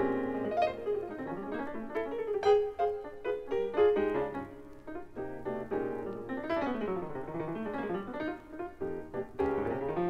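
Solo acoustic piano playing a jazz piece, many single notes and chords with quick runs, played back from a vinyl LP.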